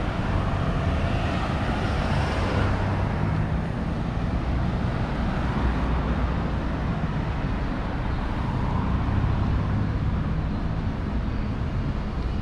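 Steady road-traffic rumble of a city street, with a vehicle passing about one to three seconds in.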